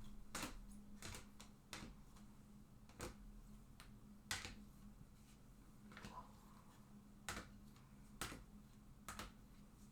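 Trading cards in plastic holders being handled and set down on a table: sparse, light clicks and taps, about one every second, over a faint steady hum.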